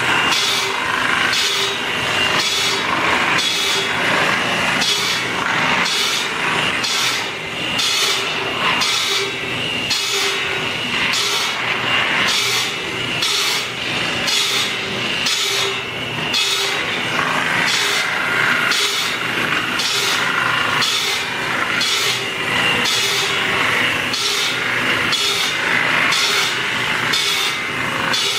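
A saw cutting through wood in a steady back-and-forth rhythm, about two strokes a second.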